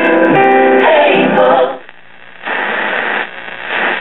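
1963 General Electric H220A AM transistor radio playing music with singing through its speaker. About two seconds in the music drops out, goes briefly quiet, then gives way to a hiss of static.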